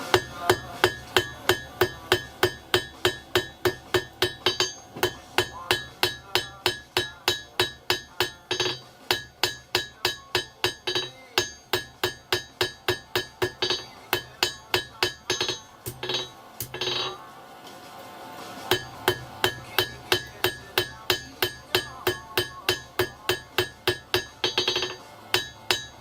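Hammer blows on a 115 kg South German double horn steel anvil while forging a leaf, a steady rhythm of about two to three ringing strikes a second. The hammering stops briefly about two-thirds of the way through, then picks up again.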